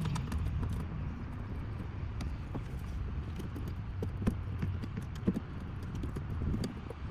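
Scattered light clicks and taps of mirror mounting nuts and hardware being handled and threaded on by hand, with a couple of sharper knocks about four and five seconds in, over a steady low rumble.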